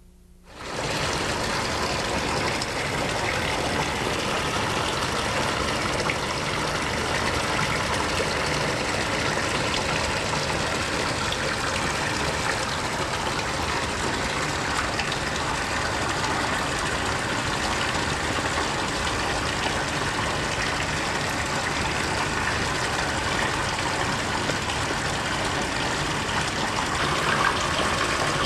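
Steady rushing noise of running water, switching on abruptly under a second in and holding level throughout.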